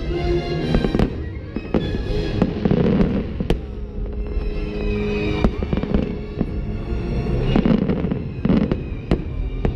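Aerial firework shells bursting in repeated sharp bangs, over the fireworks show's orchestral-style music.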